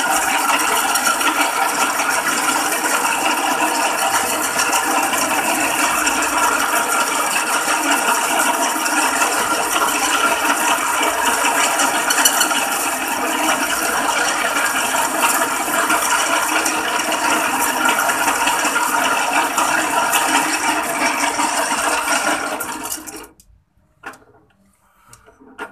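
Small metal lathe running steadily while its cutting tool turns down the salt-corroded wall of a PENN 950 SSm reel spool. The lathe stops about 23 seconds in, and the noise cuts off abruptly.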